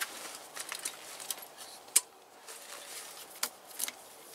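Rummaging through a nylon backpack: scattered rustles and small clicks of gear being handled, with one sharp click about two seconds in.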